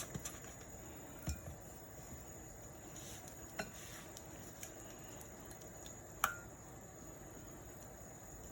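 A spoon stirring a thick sauce in a bowl, with a few scattered taps and clinks against the bowl; the loudest is a single ringing clink about six seconds in.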